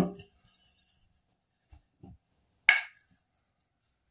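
A quiet room with one short, sharp click or tap about two and a half seconds in.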